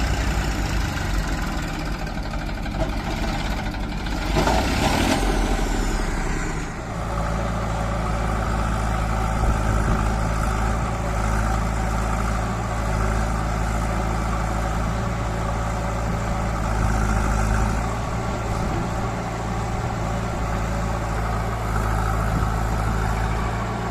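Heavy diesel engines of a backhoe loader and tractors running steadily. A louder, noisy stretch lasts about two seconds from around four seconds in.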